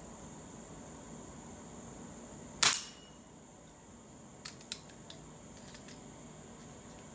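A Beeman P1 .177 spring-piston air pistol fires once about two and a half seconds in, a single sharp shot, followed a couple of seconds later by a few faint clicks. A steady high insect buzz runs underneath.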